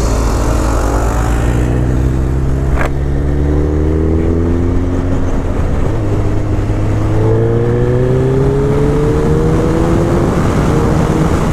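Suzuki Hayabusa's inline-four engine accelerating hard, its pitch climbing through the revs. Around six seconds in the pitch drops at a gear change, then climbs again.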